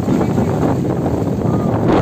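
Strong sea wind buffeting the microphone, a loud steady rumbling rush with no clear pitch.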